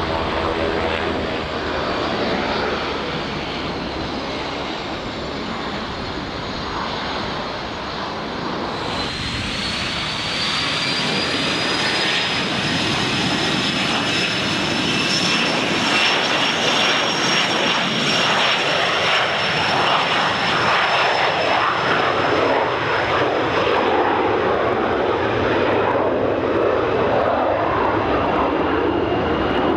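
A Cessna Grand Caravan amphibian's single turboprop drones on the runway. About nine seconds in, the sound changes abruptly to a twin-engine business jet's turbofans: a high whine that climbs in pitch and then eases down, growing louder. Near the end a second, lower whine rises as the jet spools up for its takeoff roll.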